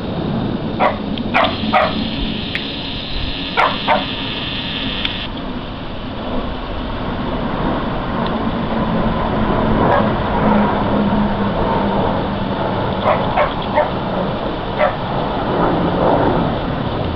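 Steady drone of aircraft flying over during a flypast, a camera's lens motor whining for a few seconds near the start, and several short sharp yelps like a small dog barking, in two clusters near the start and toward the end.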